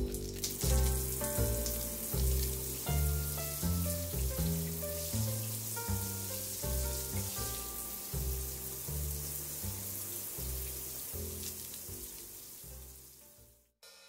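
Shower running, a steady hiss of spraying water, over background music with a stepping bass line and melody. Both cut off suddenly near the end.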